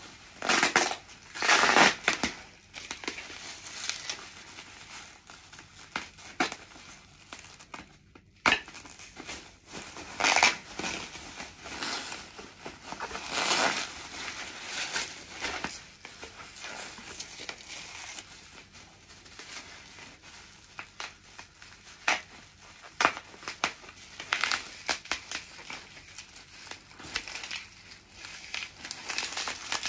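Bubble wrap and foam packing wrap crinkling and rustling in irregular bursts as wrapped crockery is unwrapped by hand.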